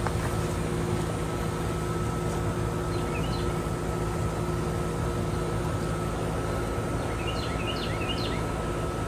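A 2006 R22 central air-conditioning condensing unit running, its compressor and fan making a steady hum. Birds chirp briefly about three seconds in and again in a quick series near the end.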